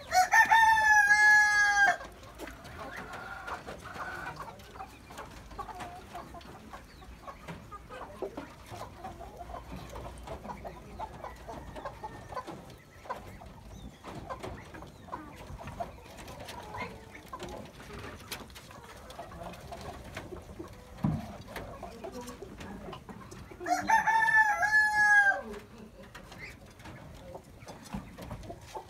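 A rooster crows twice, each crow about two seconds long: the first right at the start, the second about 24 seconds in. Hens cluck more quietly in between.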